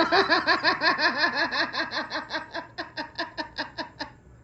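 A long burst of high-pitched laughter: rapid, evenly repeated ha-ha pulses, about five or six a second, growing weaker and dying away about four seconds in.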